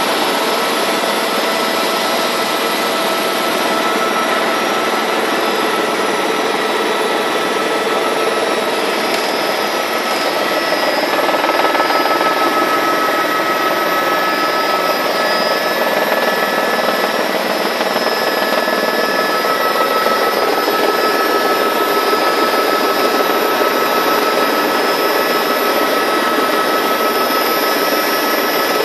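Helicopter engine and rotor noise heard inside the cabin: a loud, steady roar with several high whining tones held over it, growing slightly louder about eleven seconds in.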